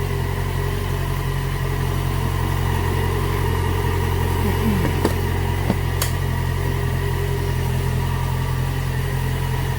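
Motorcycle engine idling steadily, its FZ6R started on a freshly installed battery, with a couple of light clicks about five and six seconds in.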